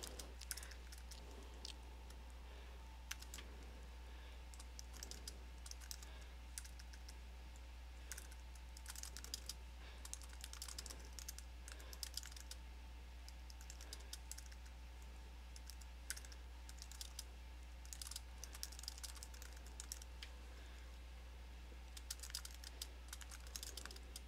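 Computer keyboard typing: faint, irregular runs of key clicks with short pauses, over a steady low hum.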